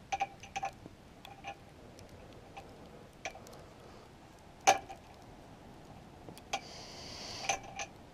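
Small metallic clicks and taps of an Allen key working the set screws at the base of a metal light pole, irregular, with one sharper click about halfway through and a brief rustle near the end.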